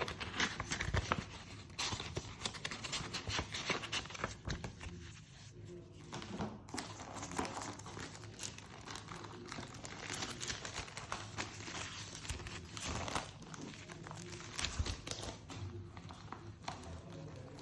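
Paper packaging crinkling and rustling in irregular handfuls as it is unwrapped by hand.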